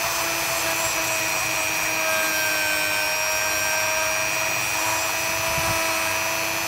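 Dremel rotary tool running with a steady whine, its small bit scrubbing dirt off the sheet-metal firebox of a Mamod model steam engine.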